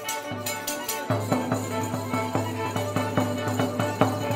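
Traditional Ukrainian folk music driven by a bubon frame drum beaten in a quick, even rhythm of about four strokes a second. Steady sustained tones from a pitched instrument sit underneath, dropping out briefly near the start.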